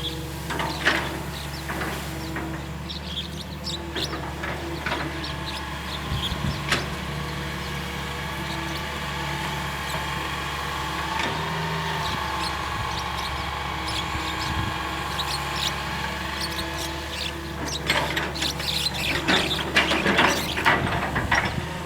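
Hitachi EX220-1 long-reach excavator running steadily, with scattered squeaks, clicks and knocks from the working machine. The knocking and clatter grow busier near the end.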